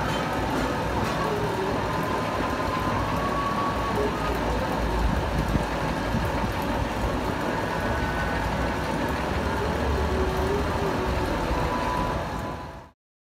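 Metal lathe running, spinning a splined hydraulic pump shaft in its chuck: a steady mechanical running noise that stops abruptly near the end.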